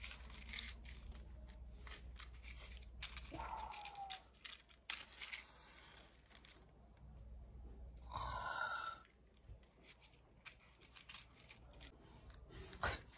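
Matches being struck on a matchbox again and again: short scrapes and clicks, with one longer, louder hiss a little past halfway. A short falling tone sounds about three and a half seconds in.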